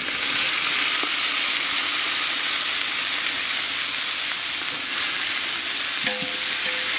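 Sliced onions frying in hot ghee, a steady sizzling hiss.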